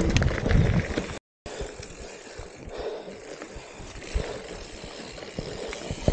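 Mountain bike riding over a trail: low tyre rumble with rattling clicks, loud for about a second, then cut off by a brief dropout and followed by a quieter stretch of rolling noise.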